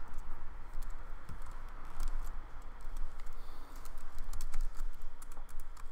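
Typing on a laptop keyboard: a run of uneven key clicks, coming thicker in the second half.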